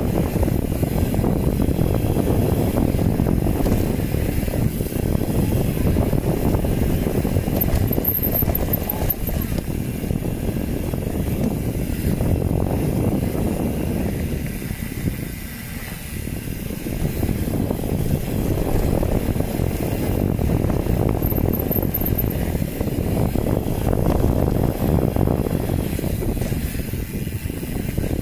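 Wind buffeting the microphone and tyres rumbling over a dirt trail on a downhill mountain-bike descent. The noise is rough and fluttering, and it eases briefly about halfway through.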